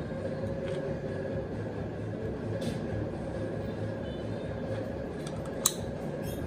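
Steady low workshop hum with a few light clicks and knocks as a compression tester's hose is unscrewed from one spark plug well and fitted into the next. One sharper click comes near the end.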